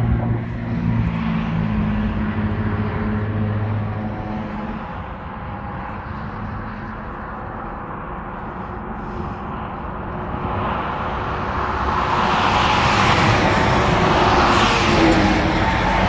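Road traffic passing close by, including heavy trucks. A low engine drone fades over the first few seconds, then engine and tyre noise swells and is loudest over the last few seconds as vehicles pass.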